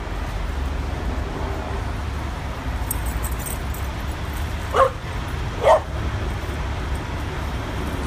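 A dog barks twice, short sharp barks a little under a second apart about halfway through, over a steady low rumble of city traffic.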